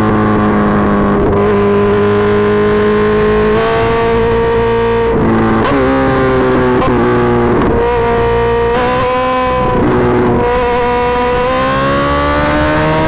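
Suzuki GSX-R1000R inline-four engine running hard at high revs, its pitch holding steady and then stepping sharply up or down several times, in the way gear changes and throttle changes do, with a slow climb near the end.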